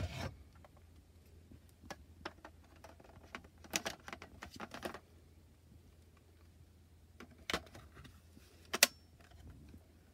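Plastic clicks and knocks from handling a Canon Selphy photo printer and its battery pack as the pack is fitted to the printer's underside, with a run of rattling clicks about four seconds in and a sharp snap near nine seconds.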